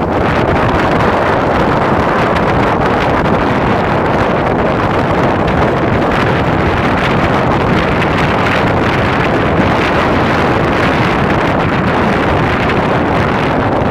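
Steady wind noise rushing and buffeting over the microphone as it moves along a road.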